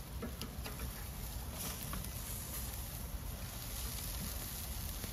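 Food sizzling and charcoal crackling on a kamado-style charcoal grill: a steady hiss with scattered small pops, over a low rumble.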